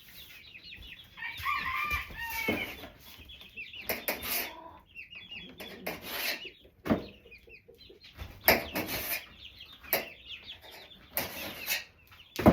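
Chickens clucking repeatedly, in short pitched calls, with several sharp knocks from a knife chopping fruit on a cutting board.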